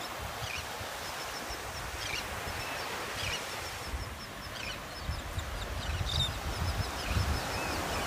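A flock of shorebirds and seabirds (terns and gulls) calling, with many short high calls and quick runs of peeps, over the wash of small surf. Low gusty rumbles of wind on the microphone come and go, strongest in the second half.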